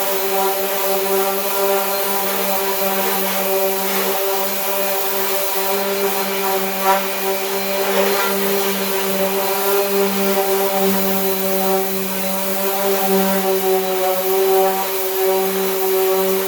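Power sander running steadily with a constant hum and hiss as it sands cured body filler on a pickup fender; a few brief clicks come about four, seven and eight seconds in.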